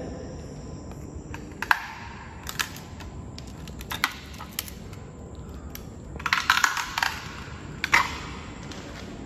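Footsteps crunching and scraping on a concrete floor strewn with grit and debris: a few single crunches, then a quicker run of them about six seconds in.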